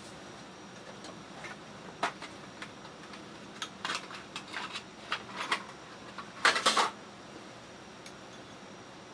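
Cooking utensils and cookware clinking and knocking together: a scattered run of light clicks with a louder clatter near the end.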